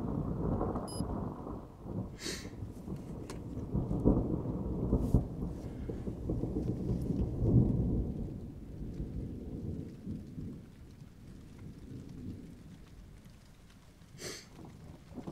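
Thunder rumbling continuously from a close thunderstorm. It swells to its loudest about four and seven seconds in, then dies away to a low grumble after about ten seconds. Two brief sharp sounds cut through, one early and one near the end.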